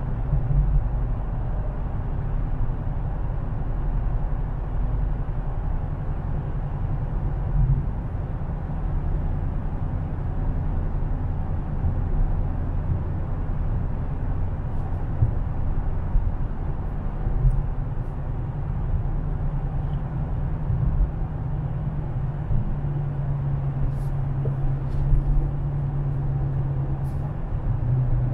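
Dodge Challenger widebody's V8 engine droning at highway cruise with steady tyre and road rumble, heard from inside the cabin. The engine note grows steadier and stronger for a few seconds near the end.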